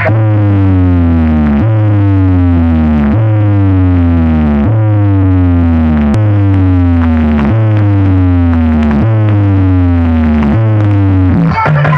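Pop bass test track played loud through a large DJ sound system: a heavy bass tone pulsing about every second and a half, each pulse carrying a falling synth sweep above it, with a brief break near the end.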